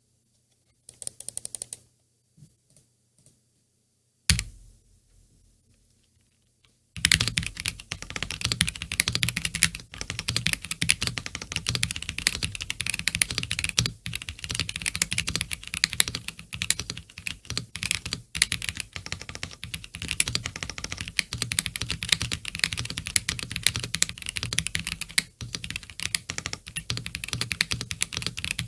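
Mechanical keyboard with stock, unlubed Gazzew U4T V2 tactile switches being typed on: a few short bursts and a single knock in the first seconds, then fast continuous typing from about seven seconds in.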